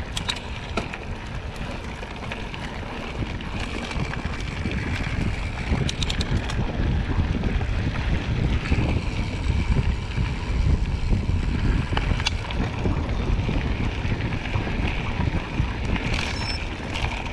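Wind buffeting the action camera's microphone as a mountain bike rolls over a gravel dirt track, with tyre crunch and a few brief rattles from the bike. It grows louder a few seconds in.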